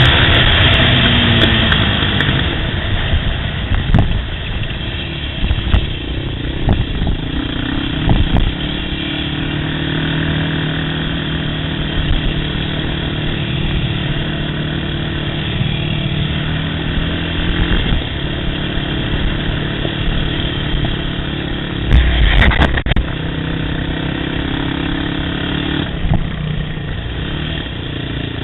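Yamaha YFZ quad's engine easing off in the first second or two, then running at a steady, moderate speed over rough trail. Sharp knocks come now and then, with a loud thump about three quarters of the way through.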